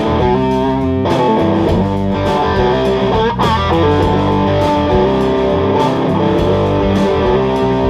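Band music led by electric guitar, with bass guitar under held chords.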